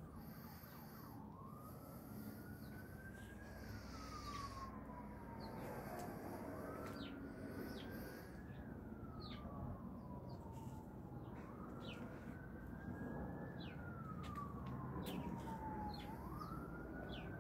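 A faint wailing siren, its pitch rising quickly, then slowly falling, in cycles of about five seconds. Underneath is a steady low rumble, with a few short bird chirps.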